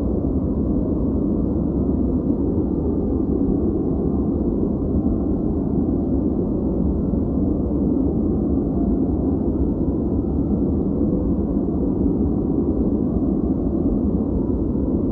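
Steady, dull noise track for focus or sleep, deep and muffled with no high hiss, holding unchanged throughout.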